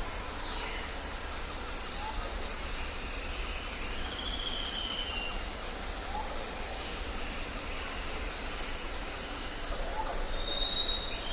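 Birds calling with scattered whistled notes, several gliding down in pitch and a longer arching note about four seconds in, over a steady low rumble.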